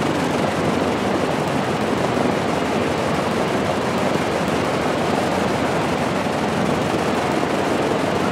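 Lockheed P-38F Lightning's liquid-cooled Allison V-1710 V-12 engines running steadily on the ground.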